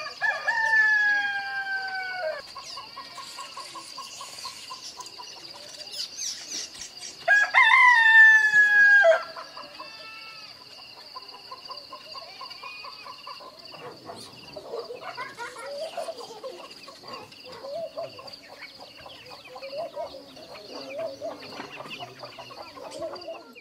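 Two rooster crows, each about two seconds long, the first right at the start and the second about seven seconds in. From about fourteen seconds in, softer chicken clucking follows over a steady high-pitched hum.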